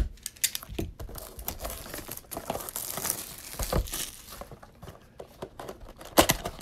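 Plastic shrink wrap crinkling and tearing as it is stripped off a cardboard trading-card blaster box: a dense crackle of small snaps, with a few louder snaps near the end as the box is handled.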